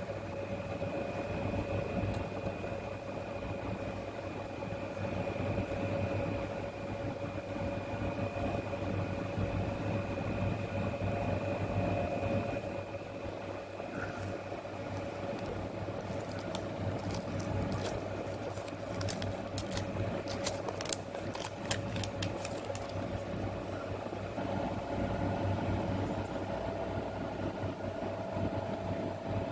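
A steady machine hum with a couple of faint steady whining tones, and a quick run of sharp clicks about two-thirds of the way through.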